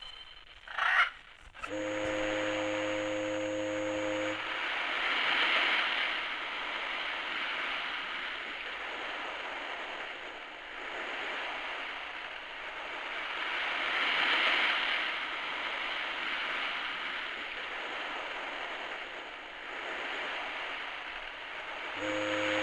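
Cheap clock radio's sound machine playing a low-quality wave-and-foghorn track through its small speaker: surf swelling and falling about every nine seconds, with a foghorn blast near the start and another near the end.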